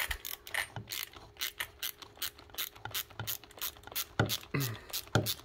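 Hand ratchet wrench with a 7mm socket, its pawl clicking rapidly in uneven runs as it is turned back and forth.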